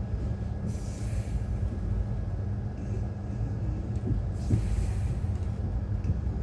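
Passenger train running along a station platform, heard from on board: a steady low rumble of the coach and wheels, with a couple of brief hisses about a second in and again near the end.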